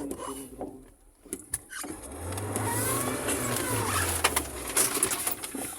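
Car engine running and revving, with a run of sharp knocks and clicks near the end.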